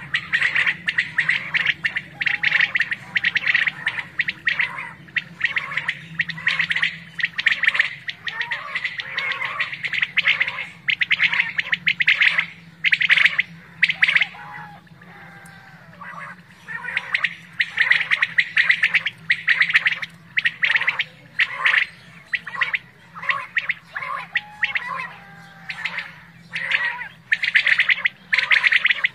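Many caged decoy quail calling over one another in quick, repeated bursts, with a brief lull about halfway through.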